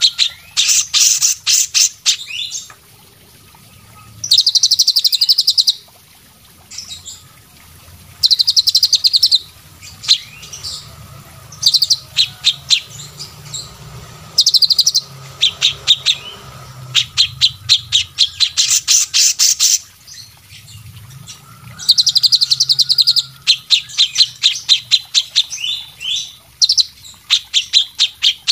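Songbird song: rapid chattering trills and ticking notes, repeated in bursts of about one to three seconds with short pauses between them. A faint low hum runs underneath.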